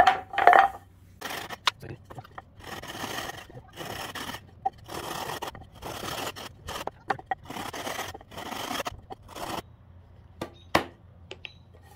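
Wooden slats knocking together at the start, then a hand saw cutting a small softwood block in a run of short rasping strokes. A couple of sharp wooden knocks near the end.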